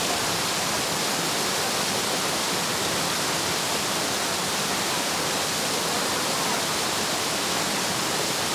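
Waterfall water rushing and splashing, a steady even roar of falling water with no breaks.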